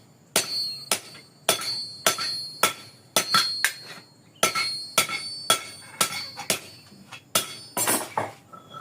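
Hand hammer striking a forged steel dodos socket on the anvil, opening up its hole, at about two blows a second. Each blow rings metallically, with a quick run of lighter taps near the end.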